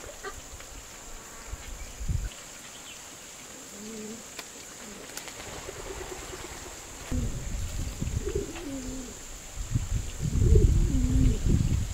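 Low, wavering animal calls: a few short ones about four seconds in, then louder runs from about seven seconds on. A steady high insect buzz continues underneath.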